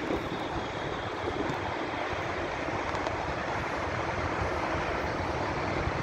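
A tram running on its rails, giving a steady rolling rumble.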